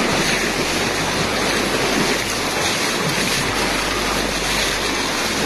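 Fast-flowing muddy floodwater rushing and churning, a steady dense wash of noise.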